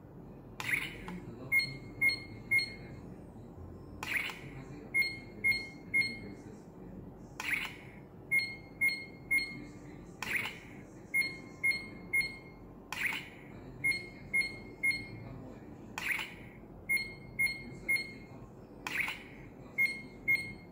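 Bandai Proplica Dragon Radar toy playing its electronic radar sound effect: a ping followed by three or four short, high beeps at one pitch, repeating about every three seconds, seven times over.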